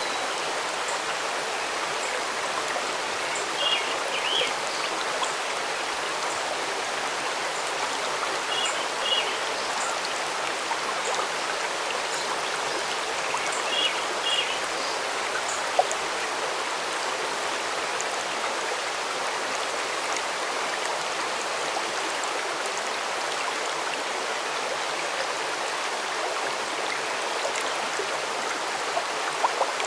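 A stream running steadily, with a bird calling in short clusters of quick high notes three times, about five seconds apart, in the first half.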